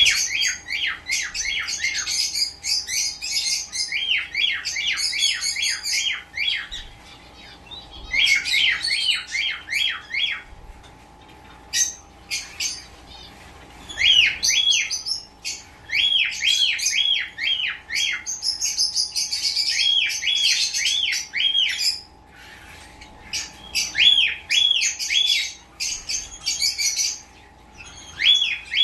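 Caged pet birds chirping in quick runs of rising-and-falling chirps, each run lasting a few seconds with short pauses between. A faint steady hum sits underneath.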